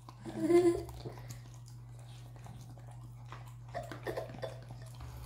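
French Bulldog–Boston Terrier mix licking whipped cream off a plastic spoon: soft wet licking and smacking clicks. A brief voice-like sound about half a second in and another near the end, over a steady low hum.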